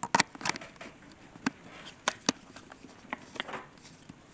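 Handling noise as a camera is fitted onto an auto-tracking tripod mount: a string of irregular light clicks and knocks, with a sharper pair about two seconds in.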